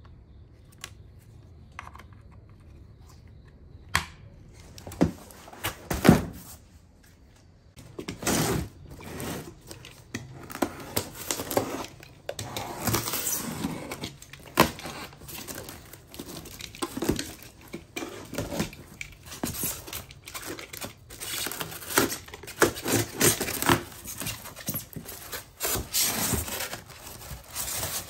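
Cardboard shipping box being opened and unpacked: packing tape tearing and cardboard flaps and foam packing rustling and scraping, with irregular knocks. A few sharp knocks come in the first seconds, before the handling noise begins.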